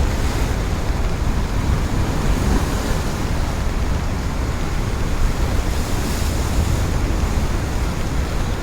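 Steady loud rush of floodwater on the swollen Thamirabarani river, an even noise heavy in deep rumble.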